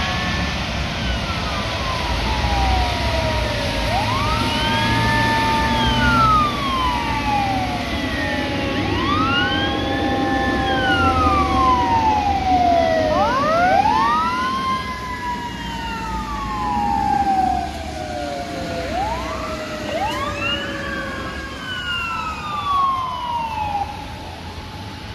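Sirens of a fire ladder truck and a swift-water rescue truck wailing, at least two sirens rising and falling out of step so their sweeps overlap, loudest in the middle as the trucks pass. Under them runs the steady noise of traffic on the wet road.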